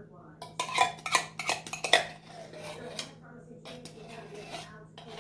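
A spoon scraping and knocking inside a can of condensed cream of chicken soup to get the last of it out: a quick run of sharp clinks and knocks in the first two seconds, then lighter scrapes and taps.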